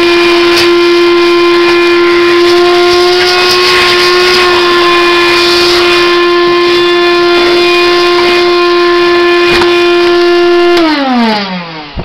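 DeWalt DC500 18-volt portable vacuum cleaner running with a steady whine and rush of air, then switched off near the end, its pitch falling as the motor spins down.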